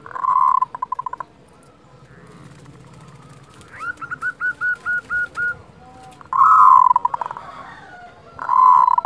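Zebra dove (perkutut) cooing: three loud coos, each trailing off in a quick rattle, with a run of about eight short, even notes in the middle.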